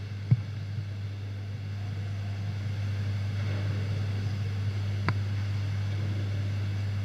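Steady low hum with faint room noise, and two light clicks, one just after the start and one about five seconds in.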